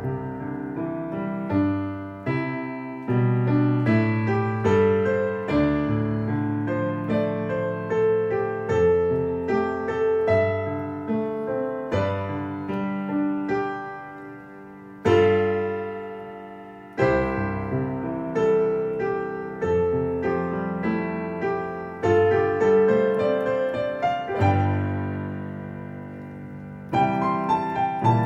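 Solo digital piano playing a slow, lyrical piece in full sustained chords. The music softens twice, about halfway through and again near the end, each time followed by a loud struck chord.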